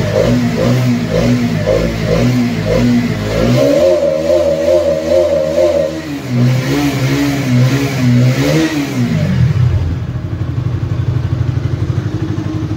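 Bajaj Pulsar NS200's single-cylinder engine revved while standing in neutral for a sound check after accident repairs. It starts with a run of short throttle blips, then is held at a higher rev about four seconds in, rises and falls once more, and settles to a steady idle about ten seconds in. The owner finds that it sounds just as it did before.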